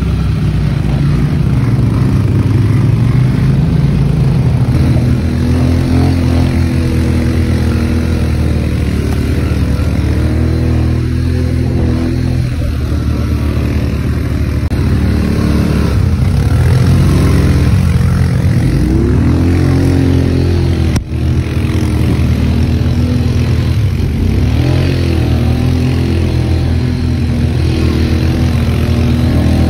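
ATV engine running loud, its revs rising and falling again and again as the throttle is worked, with a momentary break about two-thirds of the way in.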